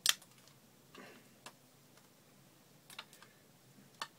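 Short sharp snaps and clicks of rubber bands being stretched and let go around a small plastic-wrapped RC lithium polymer battery pack, about half a dozen scattered through, the loudest right at the start.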